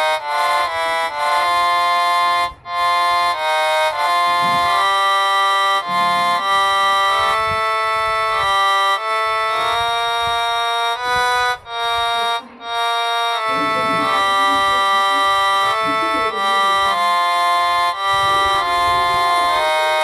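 Harmonium app on a phone playing a melody of held reedy notes, one after another, with a couple of brief breaks.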